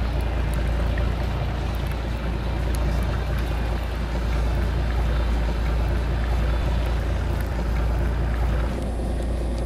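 Steady low rumble of a fishing boat's engine with a rushing hiss of wind and water; the hiss thins out near the end.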